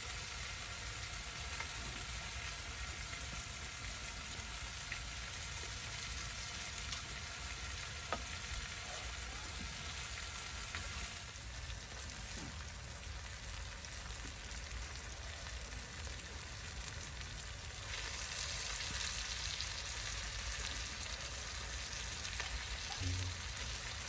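Food frying in a pan: a steady sizzling hiss that gets a little louder and brighter about three-quarters of the way through.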